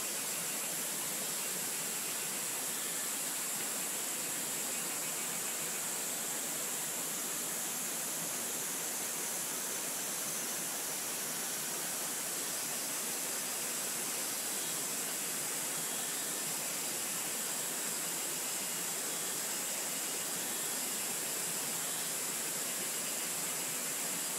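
Steady, even hissing outdoor ambience with no distinct events, brightest in a high band.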